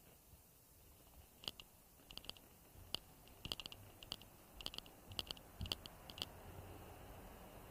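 Irregular light clicks and taps, some single and some in quick clusters of two or three.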